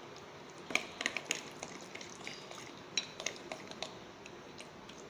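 A spoon stirring thick semolina and curd batter in a bowl, with irregular clinks and scrapes against the bowl, a few close together about a second in and again about three seconds in.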